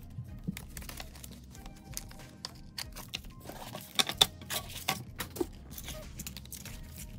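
Paper bills and clear plastic zip envelopes rustling and crinkling as cash is handled, with a few sharp taps about four seconds in as a thick stack of bills is squared, over soft background music.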